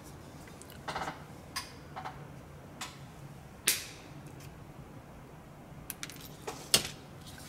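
Scattered light clicks and taps of small wooden and card model parts being handled on a workbench, with one louder, slightly longer sound about halfway through.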